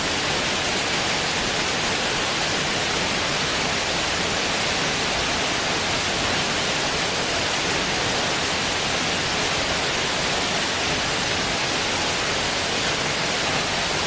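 A steady, even hiss of noise that does not change, with no other sounds standing out.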